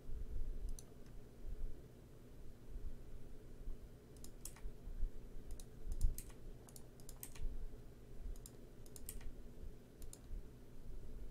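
Irregular clicks of a computer keyboard and mouse as vertices are selected and moved in Blender, over a faint steady low hum.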